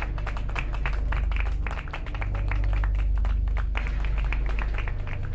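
Applause, a dense run of many quick claps, over background music with a steady low bass.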